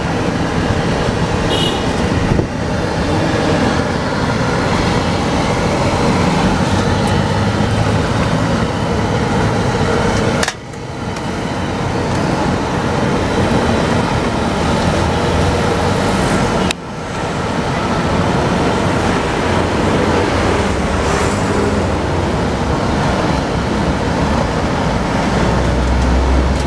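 Hot oil sizzling steadily in a large wok as batter fritters deep-fry, with two brief dips in loudness partway through.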